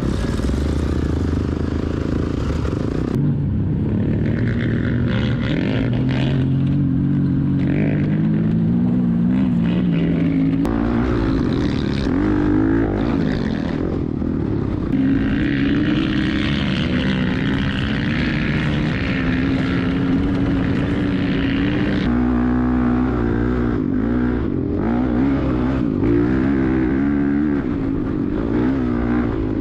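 Honda CRF450R dirt bike's single-cylinder four-stroke engine under way, its pitch climbing and dropping again and again with throttle and gear changes.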